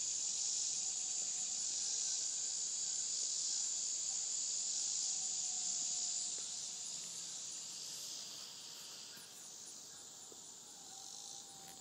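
Steady, high-pitched chorus of summer insects, growing fainter after about six seconds.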